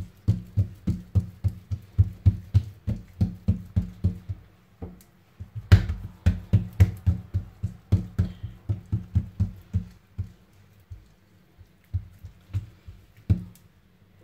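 Oiled hands patting and slapping msemen dough flat against a table, in quick runs of dull pats about three a second. The pats pause briefly midway, then thin out to a few scattered ones near the end.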